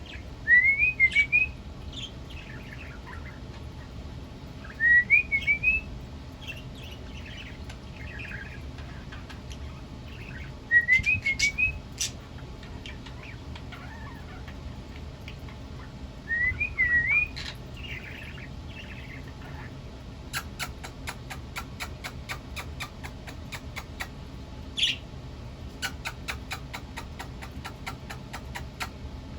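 Pet mimic bird whistling the same short rising, warbled phrase four times, each followed by soft chattering. Then comes a long run of rapid, evenly spaced clicks.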